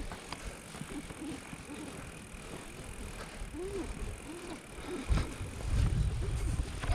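Bicycle being ridden, its tyres rolling over the ground, with a low rumble on the microphone that grows louder about five seconds in.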